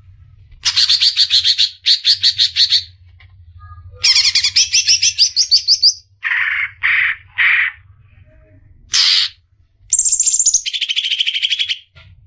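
Caged cucak ijo (greater green leafbird) singing a varied song of rapid trills, one rising run of notes, a few short lower notes and a high falling note, in separate phrases with brief pauses between them. A faint low hum runs underneath.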